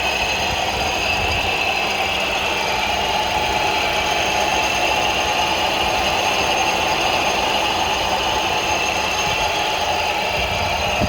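Ford Focus II 2.0 engine running steadily with a rattle and metallic ringing from the air-conditioning compressor clutch, the sign of a worn clutch.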